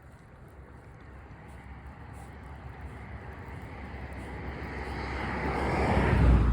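A road vehicle passing by: its tyre and engine noise grows steadily louder, peaks near the end and starts to fade.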